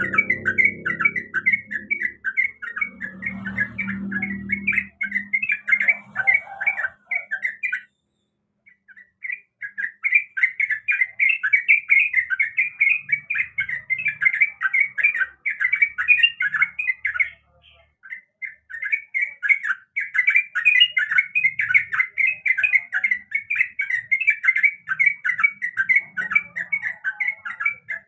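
Yellow-vented bulbul (trucukan) song: long runs of rapid chattering notes, broken by a pause about eight seconds in and a shorter one later. A low steady hum sounds under it for the first five seconds.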